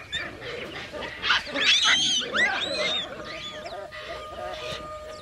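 Baboons screaming: a cluster of loud, harsh cries that rise and fall in pitch, loudest in the middle. Quiet music with held tones comes in about three seconds in.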